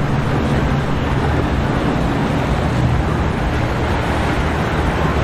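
Boat engines running steadily, a low drone under a constant rush of wind and churning water.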